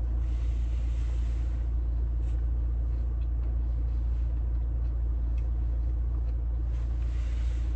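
Steady low rumble in a car's cabin while it sits still, with a rushing hiss of passing vehicles outside swelling and fading twice, just after the start and again near the end.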